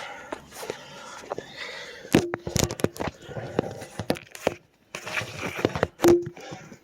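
Handling noise from working the oil filter of a 2004 Dodge Ram's 5.7 Hemi loose: irregular clicks, knocks and rustling, with a couple of sharp clicks that carry a short squeak, about two seconds in and near the end.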